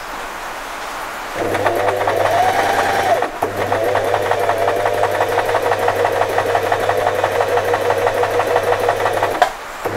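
Singer FM 2250 electric sewing machine stitching one side of a buttonhole on the third step of its buttonhole dial. The motor hums under a fast, even needle ticking. It runs for about two seconds from a second and a half in, stops for a moment, then runs again until near the end.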